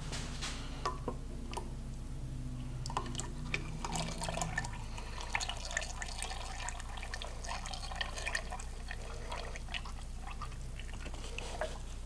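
Liquid dripping and pouring, with many small scattered clicks and taps.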